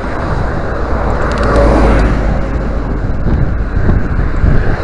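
Wind buffeting the microphone of a handlebar-mounted camera on a moving bicycle, a heavy low rumble, mixed with road traffic running alongside; the noise swells louder about one and a half to two seconds in.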